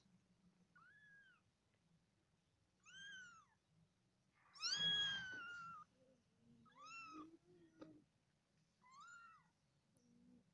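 Very young kittens mewing: five short, high mews about two seconds apart, each rising and falling in pitch, the loudest and longest about five seconds in.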